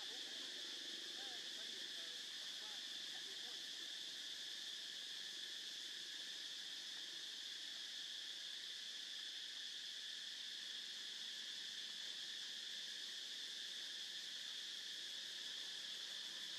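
Steady chorus of forest insects: an unbroken high buzzing drone at an even level.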